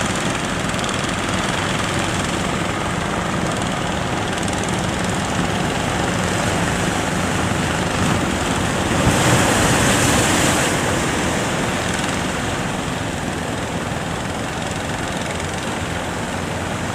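A fishing boat's engine drones steadily under the rush of sea noise. About nine seconds in, a louder rushing surge swells up for a couple of seconds and then fades back.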